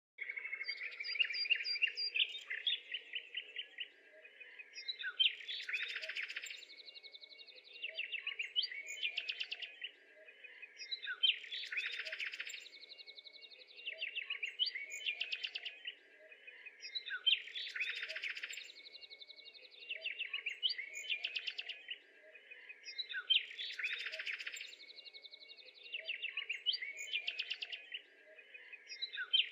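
Birds chirping and trilling in a busy chorus, the same few-second pattern repeating about every six seconds, as a looped birdsong track does.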